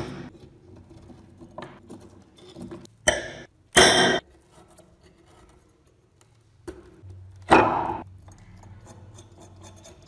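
Metal pick scraping and chipping hardened crust off rusted scissors on a wooden board: a few loud, gritty scrapes (two close together around three to four seconds in, another near eight seconds) with small ticks and crumbling bits between.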